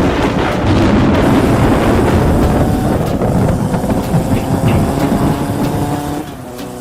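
A loud, dense rumbling noise with no clear rhythm, fading about six seconds in as steady music tones come up beneath it.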